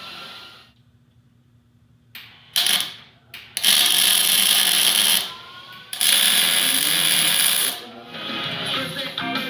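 MIG welder laying short weld beads in bursts that start and stop abruptly, a brief one then two of about a second and a half each, with a steady crackle while the arc is struck.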